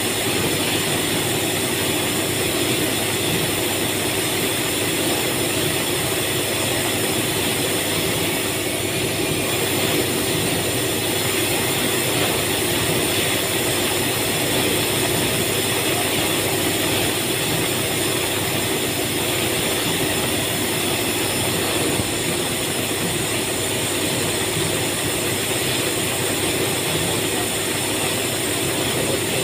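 Steady, unchanging drone of running factory machinery, with a constant hum and a high hiss and no distinct knocks or strokes.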